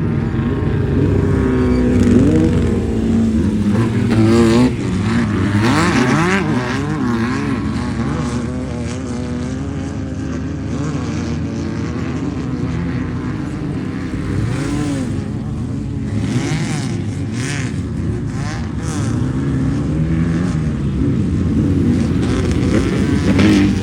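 Off-road race vehicle engines revving hard, pitch rising and falling over and over as throttle and speed change. Loudest in the first few seconds and again near the end.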